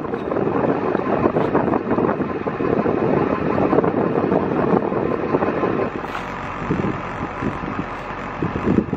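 Wind buffeting the microphone, a loud, dense flutter that eases somewhat about six seconds in.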